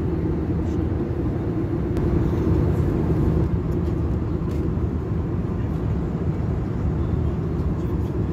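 Steady cabin noise of an Airbus A321 in flight: an even, low rumble of engines and airflow heard from a passenger seat.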